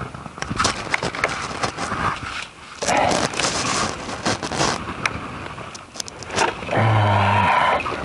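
Hand digging in soil full of tree roots: repeated chops and scrapes of a long-handled digging tool, with a noisier stretch of scraping in the middle. A short, low, steady tone lasting about a second comes near the end.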